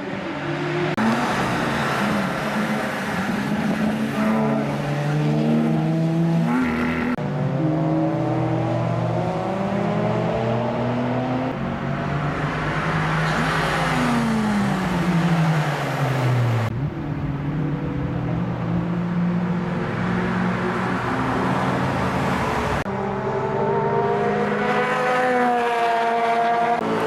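Race cars' engines running hard on a circuit, their notes climbing and dropping with throttle and gear changes. One note sweeps steeply down about halfway through, and the sound changes abruptly several times, as from cut-together clips.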